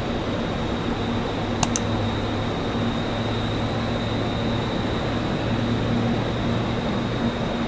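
Jet engines running steadily: a low hum with a faint high whine held level. Two quick clicks about a second and a half in.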